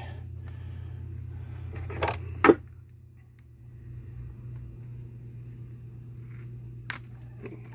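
Spring-loaded fishing scissors snipping through a quail's neck: two sharp snips about two seconds in, the second louder, and another short snip near the end.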